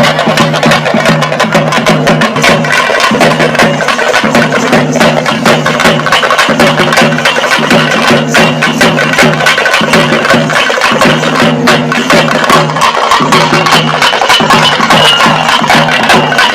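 Loud, fast percussion music: a dense run of sharp drum strokes over a steady low tone, without a break.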